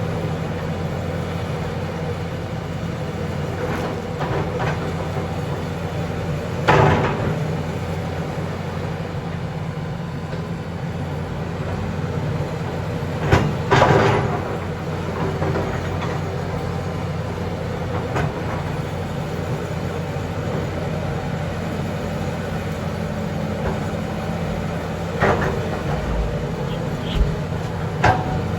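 A backhoe's diesel engine running steadily, with a few sharp metal clanks scattered through it.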